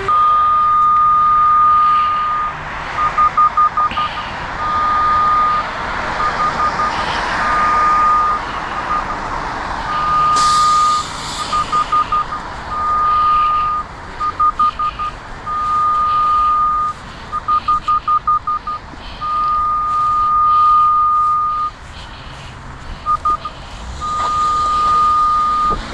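Radiodetection RD8200 locator receiver sounding its locating tone: one high-pitched beep that alternates between long steady tones of a second or two and quick runs of rapid beeps. This is the receiver picking up the locate signal on a steel bolt of a cast iron water main. A steady traffic hum runs underneath.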